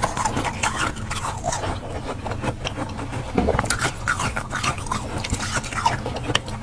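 A metal spoon scraping and scooping soft frost off the inside walls of a frosted-over freezer: a run of short, irregular scrapes.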